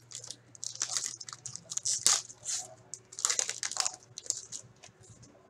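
Foil wrapper of a hockey card pack being torn open and crinkled by hand, in several short crackling bursts that trail off near the end.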